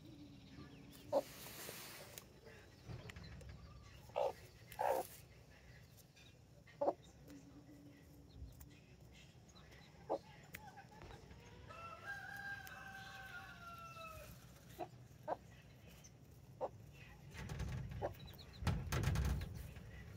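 Brahma chickens clucking in short, sharp calls scattered through, with a couple of brief low murmurs. A rooster crows once for about two seconds around the middle. A low rumble comes near the end.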